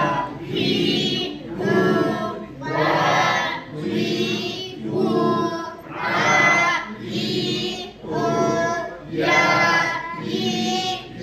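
A group of voices chanting Arabic syllables in unison, one drawn-out syllable about every second, about ten in all. The syllables are read with the long vowels of alif, ya and waw (madd).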